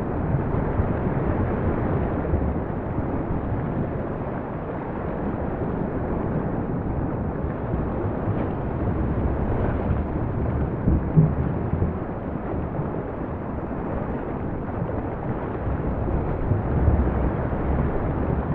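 Low, steady rumbling noise of a composed volcanic-eruption soundscape, with a brief louder low thud about eleven seconds in and another near the end.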